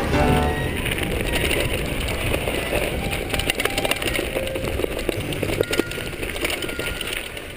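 Mountain bike rolling over a rough dirt trail: tyre noise with scattered clicks and rattles from the bike.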